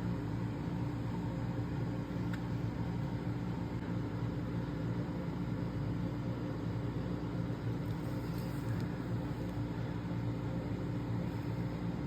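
Steady low mechanical hum with a faint hiss.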